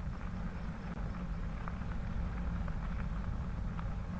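Bicycle riding along a wet crushed-limestone trail: a steady low rumble of tyres and wind on the microphone, with scattered small ticks.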